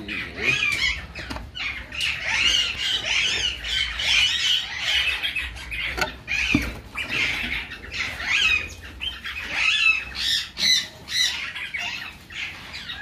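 Several parrots squawking and chirping in short, rapid calls that overlap one another, with a single sharp knock about six seconds in.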